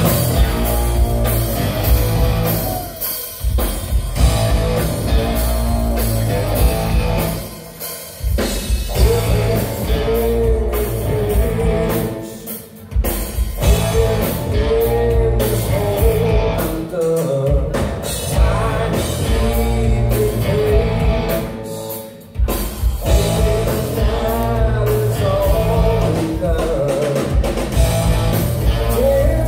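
Live rock band playing loudly: electric guitar, bass guitar and drum kit with a male lead singer. The band stops short together a few times, about a third of the way in, near halfway and again about three quarters through, then crashes back in.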